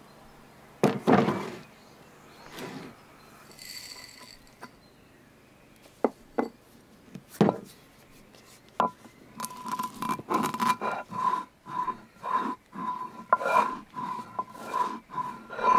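Black peppercorns being crushed and ground with a hand stone on a flat stone slab: a few separate stone knocks first, then from about halfway a quick run of rhythmic rubbing and scraping strokes, about two a second.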